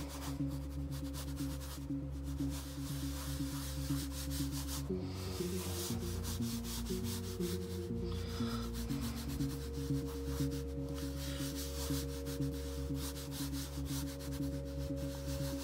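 Prismacolor Premier pencil sketching on newsprint: quick, scratchy back-and-forth rubbing strokes. Soft background music with sustained low notes runs underneath, changing chord about five seconds in.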